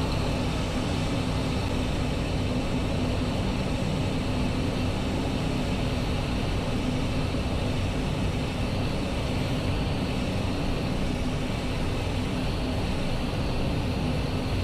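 Airliner flight-deck noise on final approach: a steady rush of airflow with an even low hum from the engines, the aircraft configured for landing with gear and flaps down.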